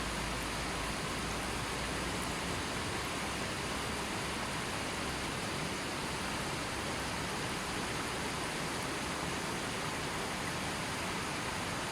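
A river flowing gently, giving a steady, even rush of water.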